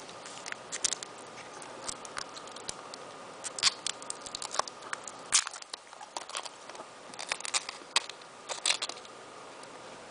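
Scattered sharp clicks and crinkles of small objects being handled by hand, some louder than others, over a faint steady hum.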